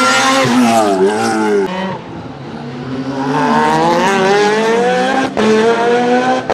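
Lotus Exige race car's engine revving hard on track. The pitch falls off about a second in, then climbs steadily again, with a short break near the end as it changes gear and pulls on.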